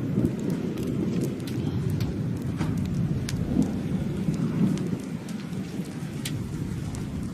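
Storm rain with many separate drops ticking sharply against a nearby surface, over a steady low rumble.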